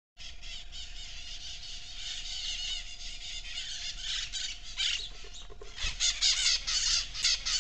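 Tropical forest ambience picked up by a trail camera: a dense, pulsing high-pitched chorus of wild creatures, growing louder in quick repeated pulses over the last couple of seconds, over a faint steady hum.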